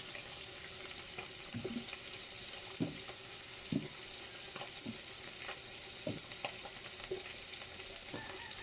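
Fish frying in hot oil: a steady sizzle, with short clicks and knocks scattered about once a second.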